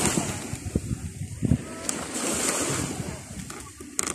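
Sea surf washing onto a beach, its hiss swelling and fading, with wind buffeting the microphone.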